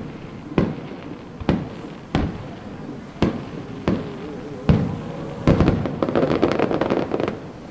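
Aerial fireworks shells bursting, six sharp bangs close to a second apart, then about two seconds of dense crackling near the end.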